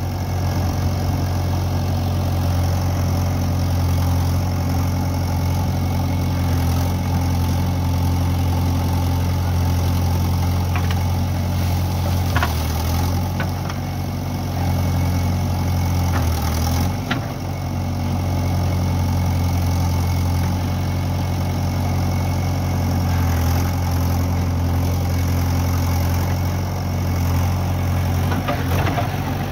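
JCB 3DX Eco backhoe loader's diesel engine running steadily while the backhoe arm works soil, with the engine note dipping briefly twice about halfway through and a few light clicks.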